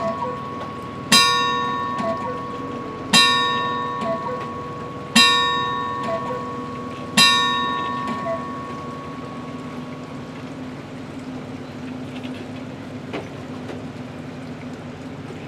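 Bell of the world's largest cuckoo clock striking, four slow even strikes about two seconds apart, each ringing on and dying away, the last fading out in the second half. A steady low hum continues underneath.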